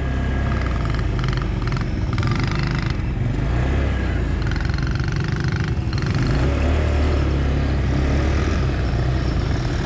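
Small 200cc ATV engine running as the quad rides on, heard close up from the onboard camera: a steady low engine drone that swells a little and eases off again, with other ATV engines faintly behind it.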